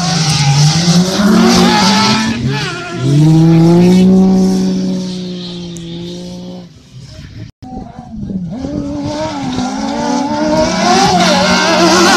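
Several 1600-class four-wheel-drive autocross prototype buggies racing on a dirt track, their engines revving up and down as they slide through the bend. About three seconds in one engine is held loud and steady at high revs. Near the middle the sound fades, then it builds again as the cars come back around.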